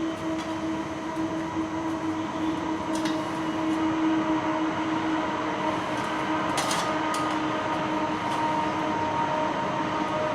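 A train going by: a steady rumble with several held tones running through it, and a few sharp clicks over the top.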